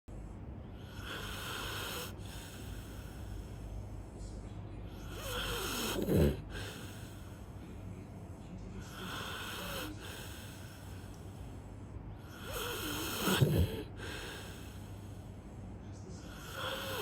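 Golden retriever snoring in its sleep: slow breaths about every three and a half seconds, with a louder snore that sweeps down in pitch twice, about seven seconds apart.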